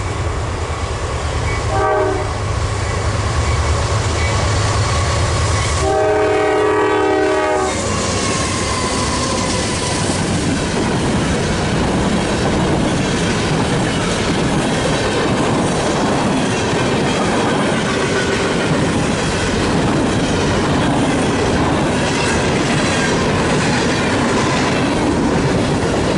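Diesel freight train approaching with its locomotives rumbling, sounding a short horn toot about two seconds in and a longer horn blast about six seconds in. The locomotives then pass and a string of freight cars rolls by with steady wheel-on-rail clickety-clack.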